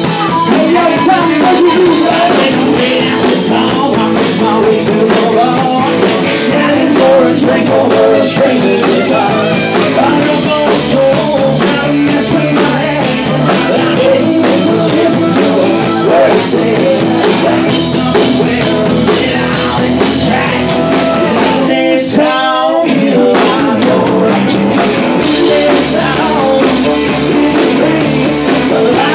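Live rock band playing loud, with electric guitars, drums and a vocal. About 22 seconds in, the low end drops out for about a second, leaving a high wavering line with vibrato.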